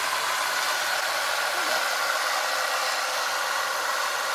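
Steady rush of air from a car's ventilation blower fan running, with a faint steady whine in it.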